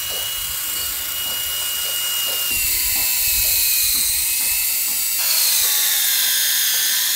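Cordless drill boring a small hole through the wooden hull planking: the motor whines steadily while the bit cuts. Its pitch shifts a couple of times, then sags and climbs back near the end as the load on the bit changes.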